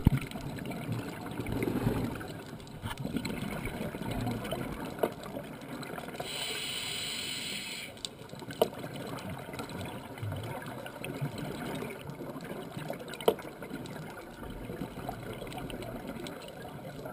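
Scuba diver breathing through a regulator, heard underwater: exhaled bubbles gurgling and rumbling, with one long inhalation hiss about six seconds in. A few sharp clicks come later.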